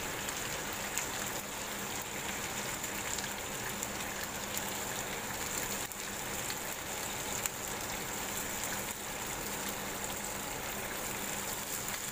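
Chicken and spicy sauce sizzling steadily in a ridged non-stick grill pan, the chicken now cooked through and being lifted out, with a few faint clicks of tongs against the pan.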